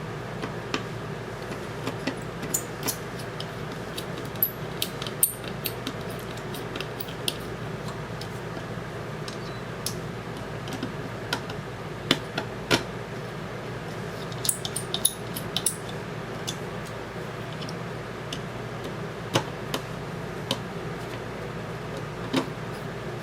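Scattered light clicks and taps of small screws and plastic and metal parts being handled while an airsoft polymer mid-cap magazine is put back together. A steady low hum runs underneath.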